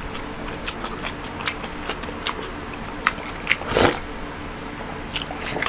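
Drinking from a metal bowl: a run of small, irregular wet clicks and gulps. A louder slurp comes a little under four seconds in.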